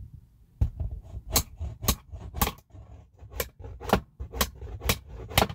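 A hand tool striking at a plastic electrical box on a wooden stud: about nine sharp knocks, roughly two a second.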